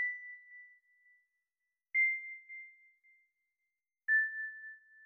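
Music: three single high, bell-like notes struck about two seconds apart, each ringing briefly and fading away; the third note is a little lower than the first two.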